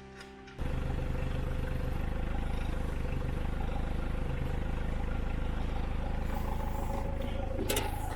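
Jeep Wrangler JK's engine running steadily, cutting in suddenly under a second in, with a single sharp knock near the end.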